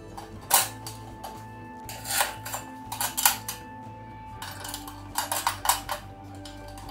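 Small metal parts of a hurricane lantern being handled and fitted: sharp clinks and taps of the wire guard and burner fittings against the steel frame, single knocks and quick clusters of clicks, the loudest about half a second in and around three seconds in.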